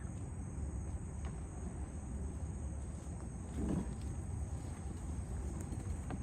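Insects trilling steadily in a high, even chorus over a low background rumble, with a brief soft sound about three and a half seconds in.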